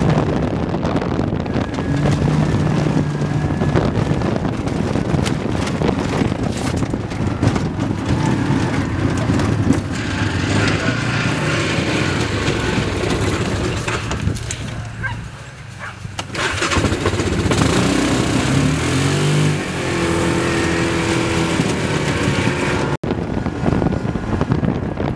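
Side-by-side UTV engine running as the vehicle drives, the engine note rising and falling with the throttle, with a brief lull about halfway through.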